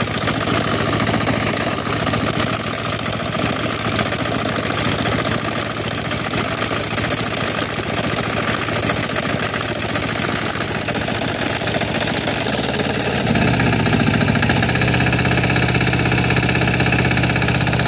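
Small engine of a walk-behind two-wheel tractor with a sickle-bar mower running steadily. About thirteen seconds in its note changes and it gets louder.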